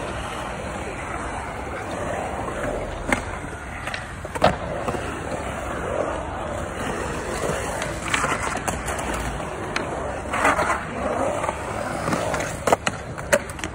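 Skateboard wheels rolling and carving around a concrete bowl, a steady rumble broken by sharp clacks of the board, the loudest about four and a half seconds in and several more near the end.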